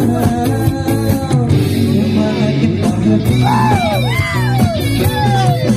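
A live rock band playing: a male vocalist sings through a microphone over electric guitars, bass guitar and drums. The sung line swoops up and down in pitch, most clearly in the second half.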